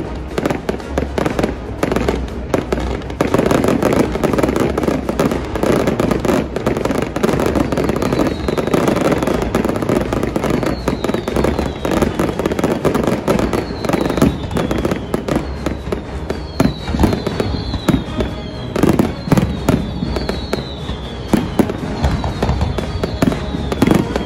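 Fireworks display: a rapid, continuous run of aerial shells bursting, with bangs and crackling, and music laid over it.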